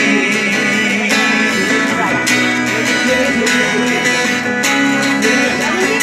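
Live acoustic band playing an instrumental break: an acoustic guitar strumming with a second plucked string instrument picking a melody over it, steady and loud through a small PA.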